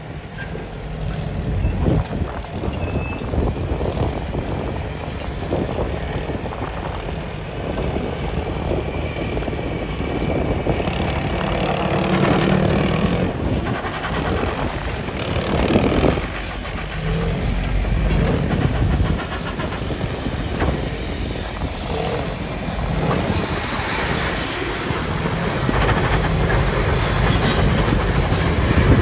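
Bucyrus-Erie 50-B steam shovel working: its steam engines run with irregular mechanical clanking as it swings the boom and digs into a dirt pile.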